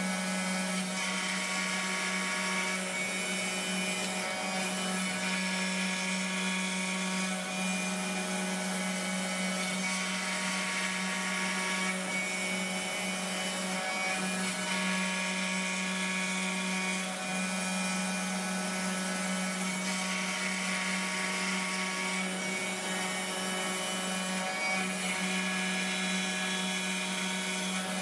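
The spindle of a 3D-printed CNC router running steadily as its small end mill cuts a pocket in a softwood board, mixed with the steady noise of a vacuum nozzle sucking up the chips. A higher whine swells and fades every few seconds as the cut goes on.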